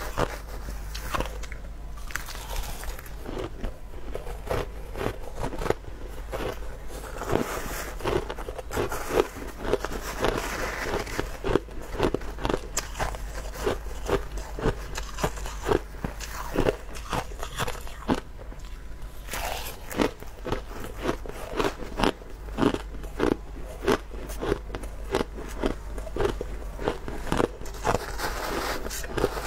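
Crushed ice being chewed, a steady run of sharp crunches about three a second.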